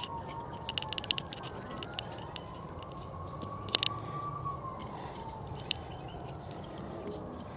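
Light clicks and clinks as hickory wood chunks are set down on charcoal briquettes in a kettle grill, the sharpest about halfway through. A faint tone slowly rises and falls underneath.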